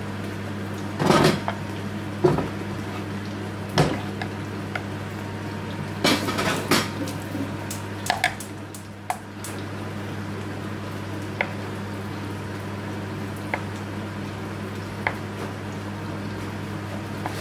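Kitchen clatter: a series of sharp knocks of a knife and utensils against a frying pan and a wooden chopping board over the first eight or nine seconds, then a few sparse single taps as a knife slices a tomato on the board. A steady low hum runs underneath.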